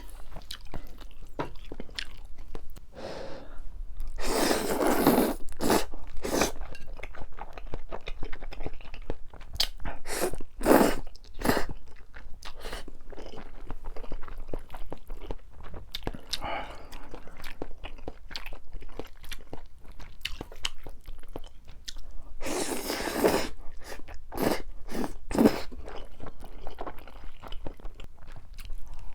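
Close-miked eating of Chapagetti noodles and green-onion kimchi: steady chewing and crunching with many small mouth clicks. Two longer, louder noisy bursts come about four seconds in and again about twenty-two seconds in.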